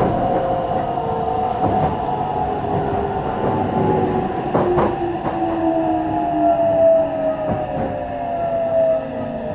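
Interior running sound of Meitetsu train 317F, an electric multiple unit, with its traction-motor whine falling slowly in pitch as the train slows. Wheels knock over rail joints now and then, and the noise eases off near the end.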